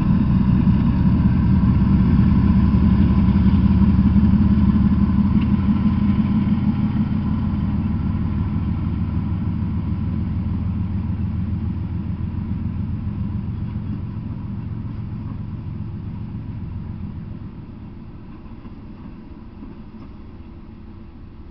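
Diesel locomotives of a freight train passing close by, a loud, steady low engine rumble. It eases off gradually and drops about seventeen seconds in, leaving a quieter rumble as covered hopper cars roll past.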